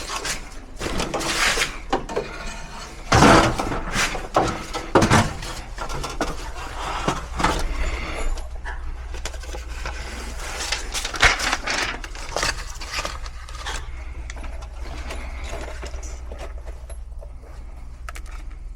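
Irregular metallic knocks, clanks and rattles from sheet-metal ductwork being handled and fitted, loudest at about three, five and eleven seconds in, over a steady low hum.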